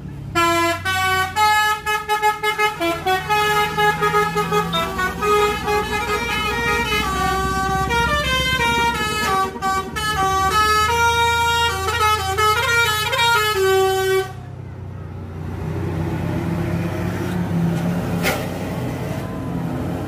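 Telolet horn of a 44 Trans tour bus playing a quick melody of many stepping notes for about fourteen seconds, then cutting off abruptly. After it, the bus engine runs on with a low steady rumble.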